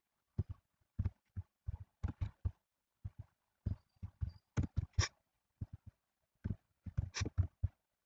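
Computer keyboard and mouse clicking as code is entered: short, irregular taps in quick clusters, several a second, with silent gaps between.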